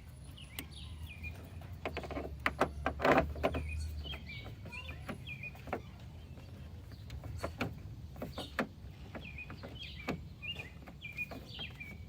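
Sharp plastic clicks and taps of a small LED bulb being pushed into its turn-signal socket and handled, densest about two to three seconds in, with birds chirping throughout.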